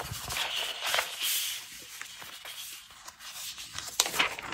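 Sheets of scrapbook paper sliding and rustling against each other as they are spread out by hand, with a few sharper paper flicks about four seconds in.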